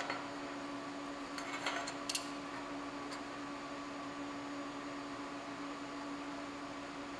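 A few light metallic clinks about one and a half to two seconds in, as aluminum plates are handled and set together on a steel welding table, over a steady electrical hum.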